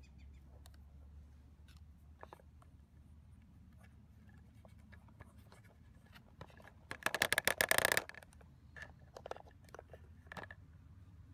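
Small plastic clicks and scrapes as a toy golf cart's plastic seatbelt straps are handled and fastened over toy figures, with a burst of rapid clicking about seven seconds in that lasts about a second.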